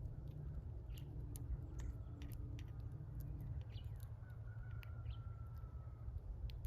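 Small birds chirping in many short, sharp calls, with a faint drawn-out whistled note about four seconds in, over a steady low rumble.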